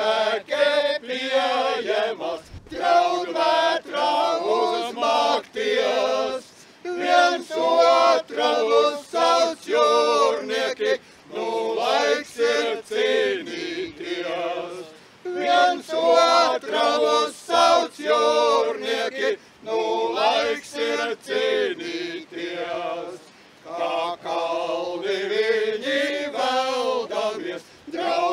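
A men's folk ensemble singing a cappella in several voices, in short phrases with brief breaks between them.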